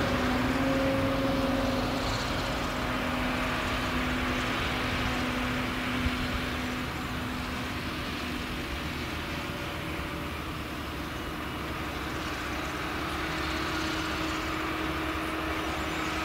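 Claas Jaguar forage harvester with its MAN V8 engine chopping maize, and a tractor pulling a silage trailer alongside and past. A steady mix of engine drone and machine noise, with one small knock about six seconds in.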